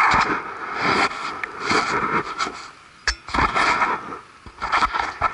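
Loud, irregular rustling and buffeting noise right on a head-worn camera's microphone, coming in several gusts with crackly scrapes and short lulls between them.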